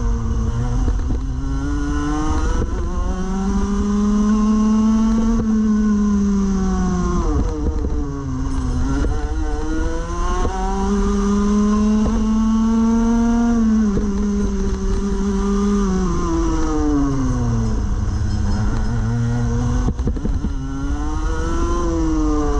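Rotax Max Evo 125cc two-stroke kart engine heard on board, revving up in pitch as the kart accelerates out of each corner, holding high along the straight and dropping away under braking, three times over.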